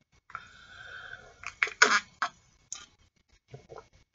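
A person sipping cola from a glass: a soft slurp, then a quick run of swallowing gulps and wet mouth clicks about two seconds in, with a few fainter clicks after.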